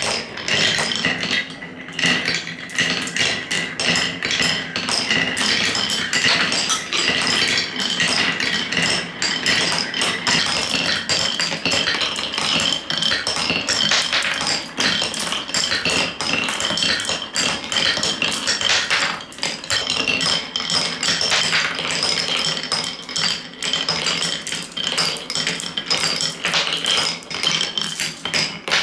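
Several glass marbles rolling, clacking and dropping through wooden Cuboro blocks and along HABA slope tracks. The result is a dense, steady patter of small clicks and knocks, with a faint ringing above it.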